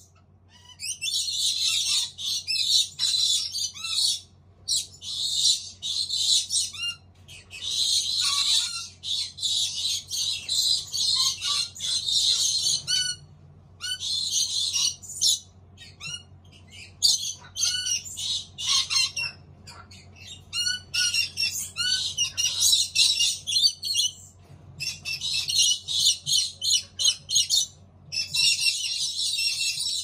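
Collared lorikeet chicks in a nest box giving rapid, rasping, high-pitched calls. The calls come in runs of a few seconds with short breaks between them.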